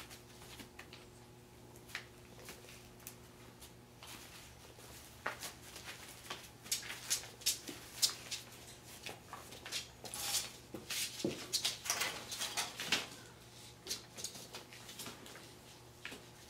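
Puppies playing and scuffling, their claws and paws scratching, clicking and rustling on a paper puppy pad and hard floor, busiest in the middle, against a faint steady hum.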